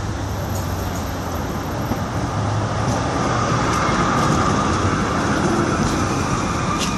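A Düwag-type articulated tram rolls into the stop and past at close range: rumbling wheel-on-rail noise that grows louder as the cars come alongside, with a steady whine from about three seconds in and a few sharp clicks near the end.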